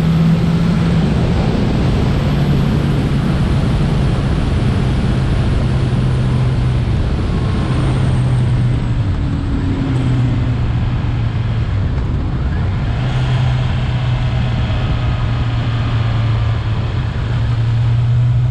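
Motorcycle engine running steadily while riding downhill, its note dipping and rising a few times, with the rush of wind over the bike.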